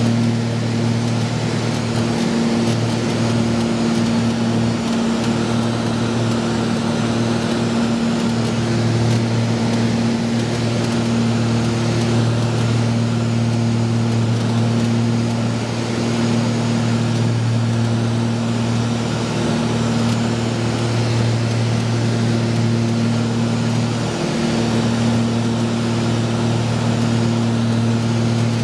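Twin piston engines and propellers of a Piper PA-31-350 Chieftain heard from inside the cabin while climbing after takeoff: a loud, steady, even drone with a low hum under the rush of air.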